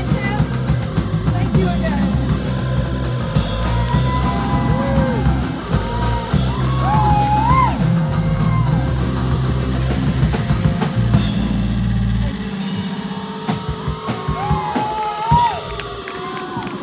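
A live rock band playing: drum kit, electric bass and guitar, with a wavering, bending melody line over the top. About twelve seconds in the deep bass drops out, leaving the drums and the higher instruments.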